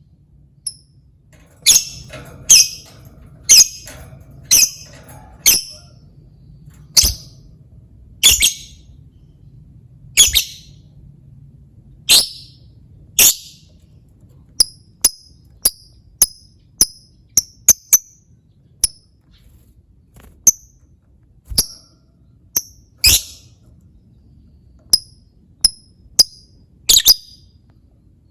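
Lovebird giving short, sharp, high-pitched chirps, one after another at irregular gaps. The first half has fuller, harsher calls about once a second; the second half has thinner, quicker chirps, often two a second.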